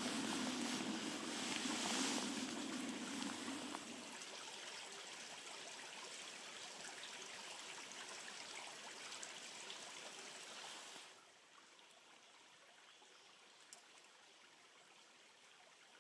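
Steady rush of a flowing stream. A lower hum runs with it for the first four seconds, and about eleven seconds in the sound drops to a much quieter level.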